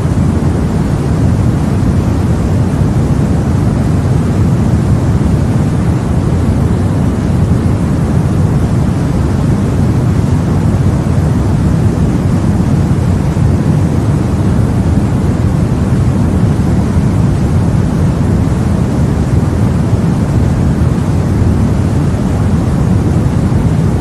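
Steady, deep rushing noise of a sleep white-noise track, heavy in the bass with only a little hiss on top, unchanging and even.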